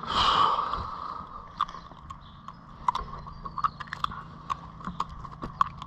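Handling a small hooked fish and its tackle: a brief rustling scrape, then irregular sharp clicks and taps.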